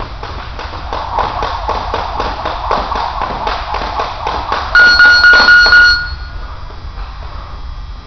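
A jump rope slaps the gym floor in a steady rhythm of about four strokes a second as he skips. About five seconds in, a loud pulsing electronic beep sounds for about a second, typical of an interval timer marking the end of a round, and the skipping stops.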